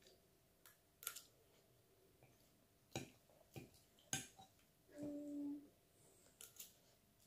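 Metal fork clicking and scraping against a ceramic bowl of pasta: a handful of soft, sharp clicks spread through near silence, with a brief low hum about five seconds in.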